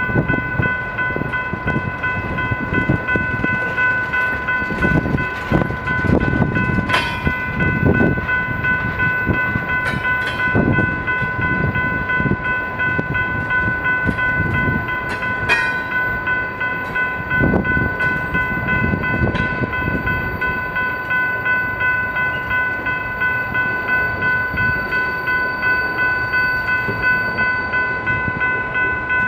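Freight train tank cars rolling past, their steel wheels clacking irregularly over the rail joints under a steady rumble. A steady high squeal rings over it throughout.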